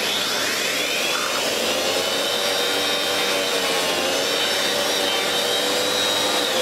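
Miele S7 upright vacuum cleaner's motor running up to speed with a rising whine over the first second and a half, then running steadily at full speed.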